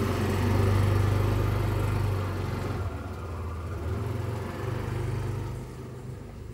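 A motor engine idling nearby, a low steady drone that eases off after about two and a half seconds.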